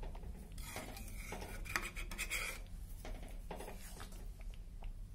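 Spoon stirring a thick curry in a metal pan, scraping and rubbing against the pan in repeated strokes.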